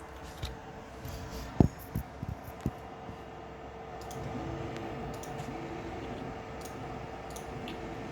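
Stepper motor on a TMC2208 driver running with a steady whine, with a few sharp clicks in the first three seconds. From about four seconds in, a second tone rises, holds and falls, coming back every second or so.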